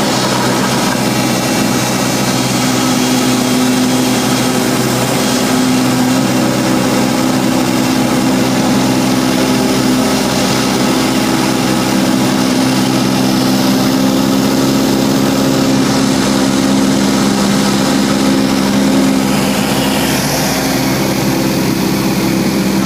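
Cessna 172's piston engine and propeller droning steadily, heard from inside the cabin, with cabin air noise over it.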